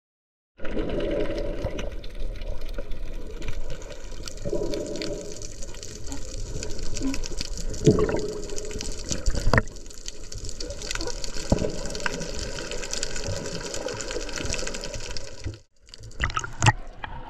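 Underwater sound picked up by a snorkeler's camera: a steady muffled rush of water with scattered knocks and clicks. Near the end it cuts out briefly and gives way to water splashing at the surface.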